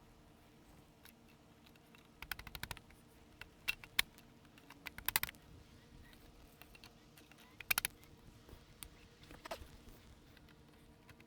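Plastic and composite parts clicking and knocking in short bursts, several quick rattling clicks and single sharp knocks, as snap-lock brackets, stakes and boards of a composite raised garden bed are fitted together.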